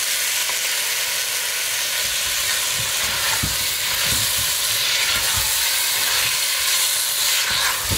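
Thick chicken curry masala sizzling steadily in a stainless steel pot while freshly added potato chunks are stirred through with a silicone spatula, giving soft irregular knocks.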